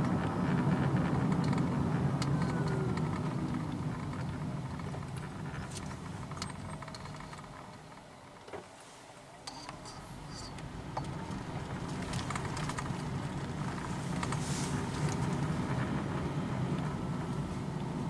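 Road and engine noise inside a Honda Freed Hybrid's cabin. It falls away as the car slows for a level crossing about halfway through, then builds again as it pulls away. A click and a few short knocks come as the tyres cross the rails.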